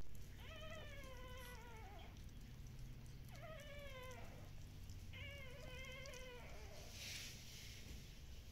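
Newborn Shiba Inu puppies crying three times, thin high-pitched squeals each lasting about a second and falling in pitch.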